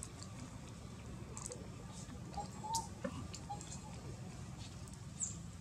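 Quiet outdoor ambience: a steady low rumble with a few scattered light clicks and a couple of short faint chirps about halfway through.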